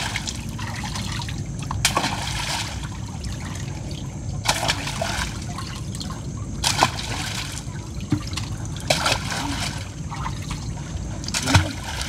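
Water trickling and sloshing off a wet gill net and its catch, with a short splash or knock every two seconds or so.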